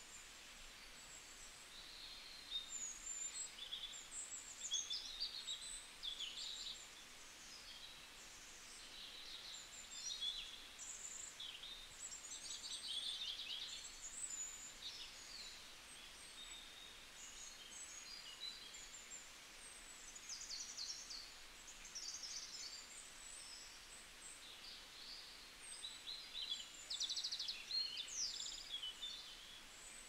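Several songbirds singing at once: a busy chorus of high chirps, short whistles and fast trills, overlapping without pause, over a faint steady hiss.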